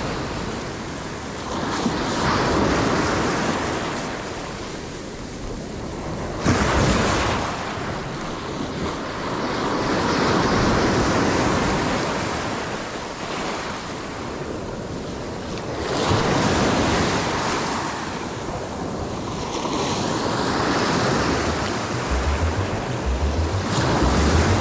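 Sea waves breaking and washing over shoreline rocks, swelling and falling away every few seconds, with wind buffeting the microphone. Near the end, a low steady beat of background music comes in under the surf.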